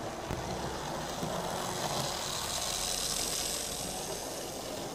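Motor whirr and wheel rumble of an OO-gauge Hornby Class 121 DMU model running on track. It grows louder as the model passes close by, loudest in the middle and later part, and eases off near the end.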